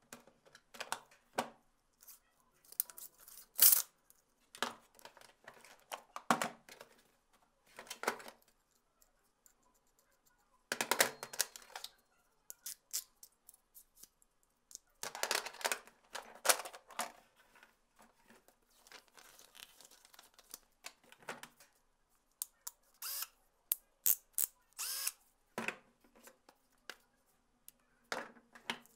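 Hand tools being taken out of and set into the fitted slots of a tool case's trays: irregular clicks, knocks and short scrapes of the tools against the trays.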